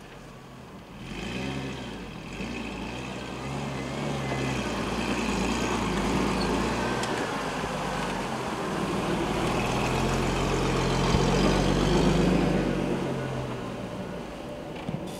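Toyota Chinook 4x4 camper's engine running at low revs as the truck crawls past over sand and rock, the pitch wavering with the throttle. It grows louder as the truck draws near and passes, then fades near the end.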